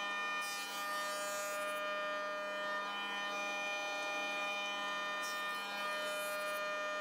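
Record Power PT107 planer-thicknesser running with a steady, many-toned whine, planing a rough apple-wood board. A brief hiss of cutting comes about half a second in and again near the end.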